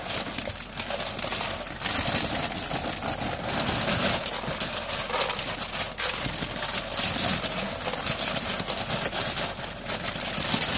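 Pelleted horse bedding poured from a plastic bag into a plastic litter box, a continuous noisy pour of pellets.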